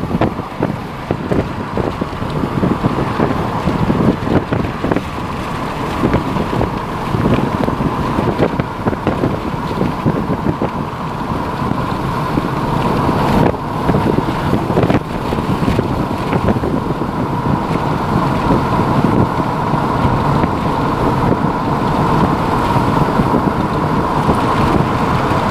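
Strong gusty wind blowing across the microphone: a steady rushing noise with irregular low buffeting.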